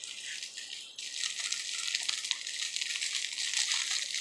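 Thin plastic wrapping crinkling and rustling as it is handled and pulled off a glass bong, a dense crackle that steadies about a second in.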